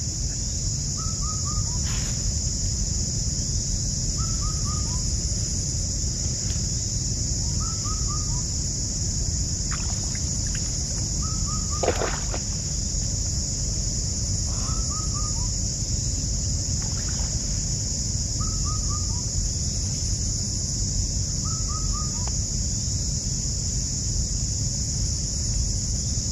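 A bird repeats a short call of three or four quick falling notes about every two seconds, over a steady high insect drone and a low rumble. A few knocks sound, the loudest about twelve seconds in.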